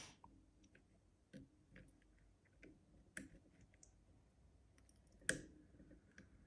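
Faint, scattered clicks and ticks from a lock pick working the levers of an Easi-T lever lock, with one louder click about five seconds in.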